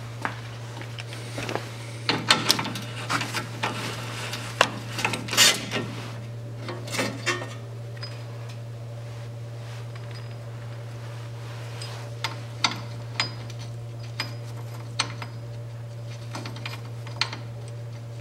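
Scattered metal clicks and clanks as the bolts of an underbody skid plate are undone and the plate section is let down, with a cluster in the first several seconds and sparser clicks later, over a steady low hum.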